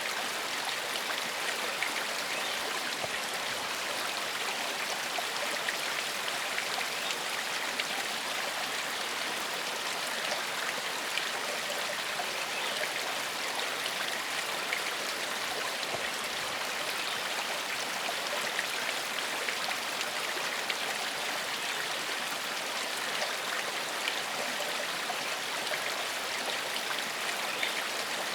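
Gentle forest stream flowing steadily: an even, continuous rush of water with small splashes scattered through it.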